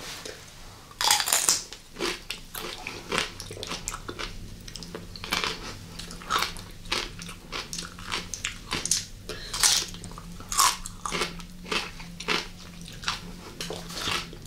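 Close-up crunching and chewing of a mouthful of whole cucumber, with one loud crunch about a second in, then a quick run of wet, crackly crunches.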